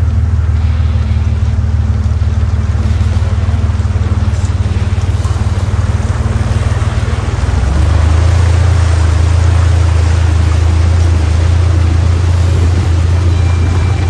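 1944 Willys Jeep engine running steadily as the jeep drives through a shallow river crossing. About halfway through the engine gets louder and the splashing of water thrown up by the tyres joins in.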